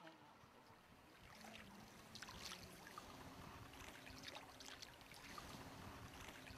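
Faint, intermittent splashing and trickling of wooden oars dipping into calm water as a sampan is rowed.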